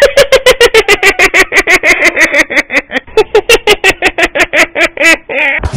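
A high-pitched comic voice rapidly repeating one short syllable, about six or seven times a second, for about five seconds, with a brief wavering note near the end.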